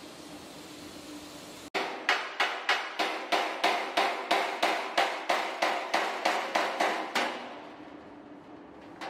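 A steady hiss from a spray-paint gun, cut off sharply just under two seconds in by a hand hammer striking a flat steel sheet, about three blows a second, forming the pressed shape of a new car floor panel. The blows stop about seven seconds in.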